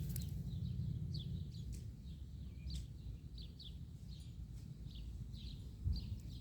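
Small birds chirping: short, falling chirps about two a second, over a steady low rumble.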